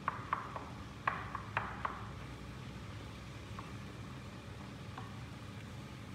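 A few light clicks and knocks from kitchen items being handled, bunched in the first two seconds with a couple more later, over a steady low hum.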